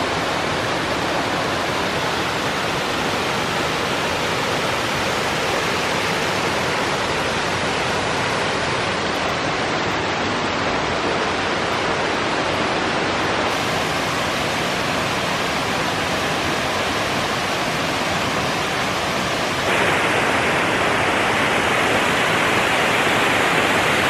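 Steady rushing of a mountain waterfall cascading over rocks, growing louder and brighter near the end.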